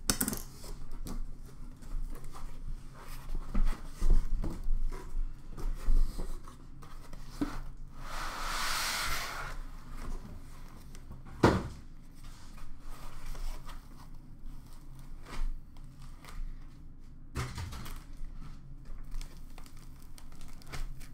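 A cardboard shipping box being opened by hand and its foam packing pulled off a boxed card set: rustling and knocks, a scrape lasting over a second about eight seconds in, and a sharp knock a few seconds later.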